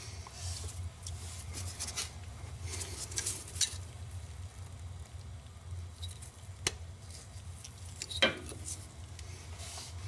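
Small clicks, rustles and scrapes of a plastic transmission range switch and its wiring harness being handled and eased off the transmission shaft, over a steady low hum. There is one sharper click past the middle and a short squeak shortly before the end.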